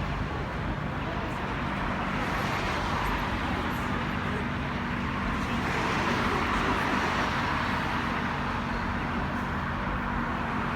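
City intersection traffic: cars passing and idling, a steady mixed rumble of engines and tyres that swells a little midway.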